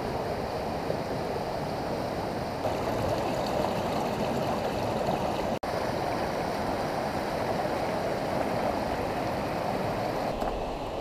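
The Gray Wolf River rushing: a steady, unbroken wash of moving water, cut off for an instant a little past halfway.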